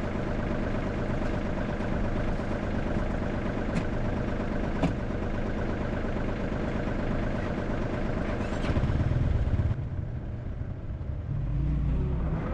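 A motor vehicle engine running steadily, with a few sharp clicks. About ten seconds in, the sound changes abruptly: the hiss drops away and a deeper low rumble takes over.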